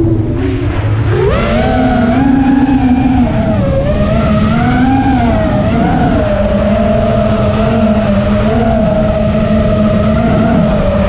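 FPV quadcopter's electric motors whining, the pitch dipping at the start, climbing about a second in and wavering with the throttle before holding fairly steady, over a low rush of wind noise.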